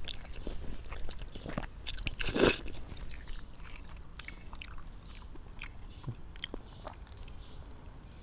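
Someone eating spaghetti: slurping noodles and chewing, with light clicks and scrapes of a fork and spoon against the plate. The loudest sound is one noisy slurp-like rush about two and a half seconds in.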